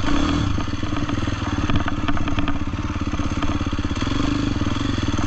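Husqvarna FC350 four-stroke dirt bike engine running steadily at low speed, with a fast, even firing pulse and some light clatter.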